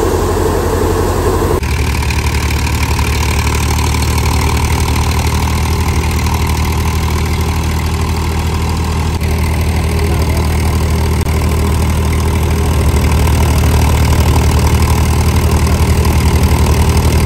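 Powertrac Euro tractor's diesel engine running steadily while it drives a wheat thresher, with the thresher churning as bundles of wheat are fed in.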